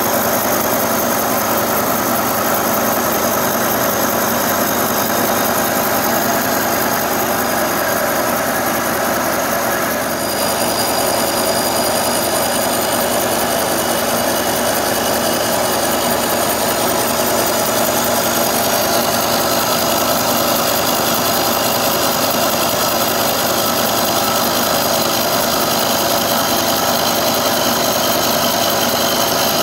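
Carbide-insert face mill on a Kearney & Trecker milling machine cutting across a raw cast iron casting: a steady, loud machining sound, dipping briefly about ten seconds in. This is a deep cleanup cut across the rough casting.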